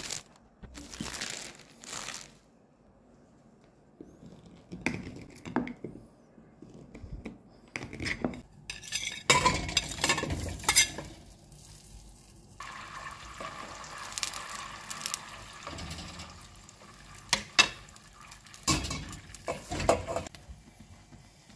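Butter cubes knocking into a stainless steel pot, then a steady sizzle as the butter melts over the heat, with further knocks as marshmallows are tipped in near the end.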